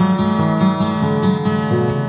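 Background music: an acoustic guitar strumming.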